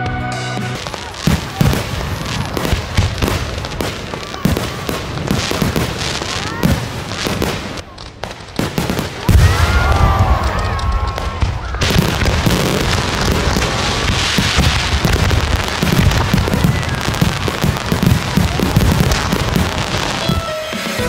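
Fireworks going off: a dense run of bangs and crackling, with heavier deep booms from about nine seconds in after a brief lull.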